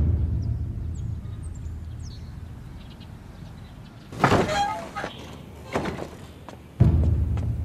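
Wooden lattice double doors pushed open with a creak and clatter about four seconds in. Before and after it come two sudden deep booms, one at the start and one near the end, each dying away slowly over a few seconds.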